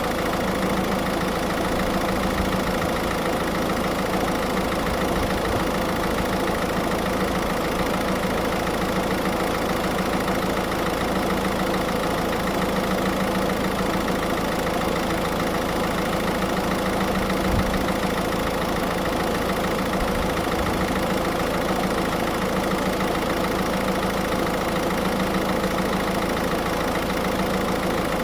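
Car engine idling steadily, running the air-conditioning system while it is being recharged with refrigerant.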